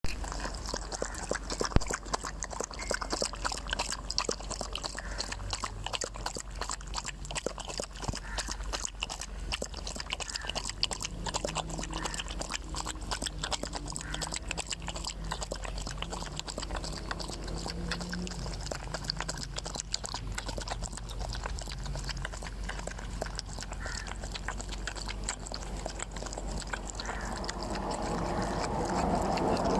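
Dog lapping water from a bowl, recorded close up: rapid, continuous wet laps.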